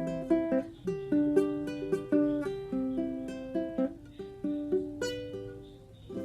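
Tenor ukulele fingerpicked: a melody of plucked notes and small chords, several a second, each ringing and fading, tapering off near the end.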